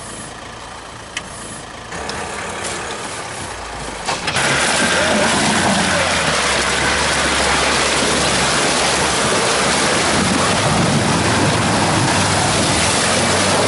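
Ford Ranger pickup truck driving through deep muddy water: loud, steady splashing and rushing water over the hum of its engine. It starts suddenly about four seconds in, after a quieter stretch of low engine sound.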